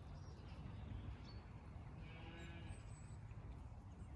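A Zwartbles sheep bleats faintly once, about two seconds in, over low background noise.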